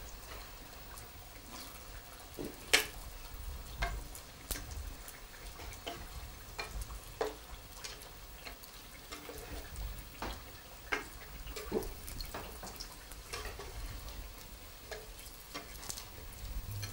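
Samosas deep-frying in hot oil in a pot over an open wood fire: a quiet, steady sizzle with scattered sharp pops and crackles.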